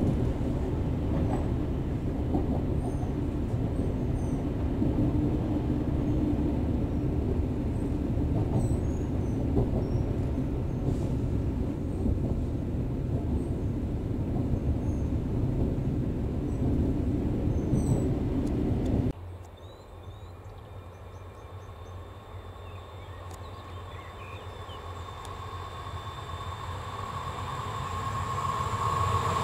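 Steady low rumble of a passenger train heard from on board as it runs through a station yard. About two thirds of the way in it cuts to a much quieter trackside scene with birds chirping, where an approaching electric train, an RFI diagnostic train hauled by an E402B locomotive, grows steadily louder with a rising hum.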